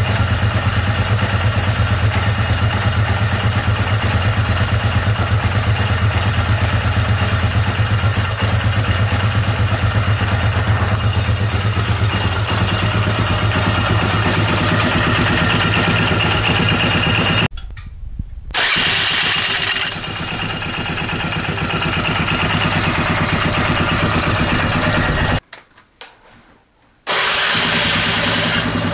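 Yamaha Grizzly ATV's single-cylinder four-stroke engine running steadily on its test run after a cylinder head rebuild. The sound drops out suddenly twice, for a second or so each time.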